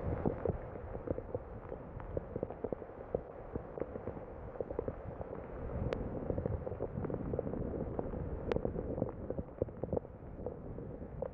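Rain falling, a steady hiss scattered with many small irregular taps of drops landing close by, and two sharper ticks in the middle.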